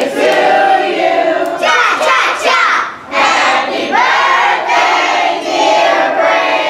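A group of children's voices singing and shouting together, loud and continuous, with a brief break about three seconds in.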